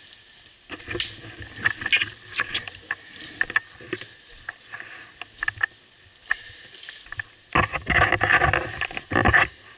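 Footsteps crunching through dry leaf litter and twigs in woodland undergrowth, with irregular snaps and brush rustling against the body. A louder stretch of rustling and crunching starts about eight seconds in and lasts under two seconds.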